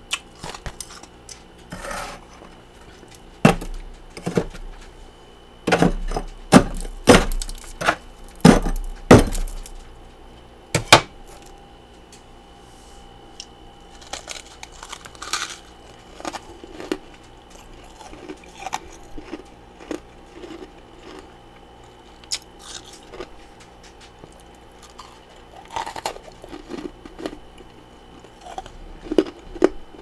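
A metal spoon clinks and scrapes against a plastic bowl as powdery freezer frost is scooped and knocked off, with a run of sharp strikes in the first ten seconds. Softer crunching of the frost being bitten and chewed follows.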